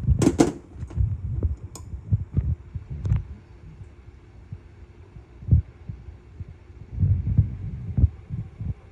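Handling noise from fitting the small steel parts of a Hawken muzzleloader's lock back together: irregular dull thumps and knocks with a few sharp metal clicks, as the spring and its clip are worked into place.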